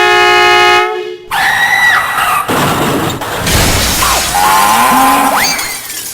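Megablast twin compressor-fed air horns sound one loud blast of about a second, a steady chord of several high tones that cuts off suddenly. Added sound effects follow: crashing and shattering with screams and sliding, swooping pitches.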